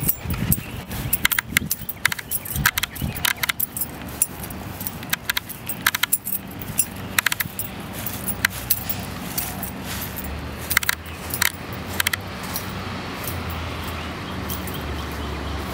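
Keys jangling in irregular clinks, several a second, thinning out after about twelve seconds. A steady low hum sits underneath, more noticeable in the second half.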